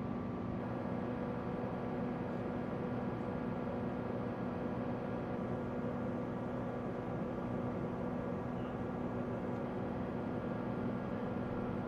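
Steady engine hum at a constant pitch, with no change in speed, like a vehicle engine left idling.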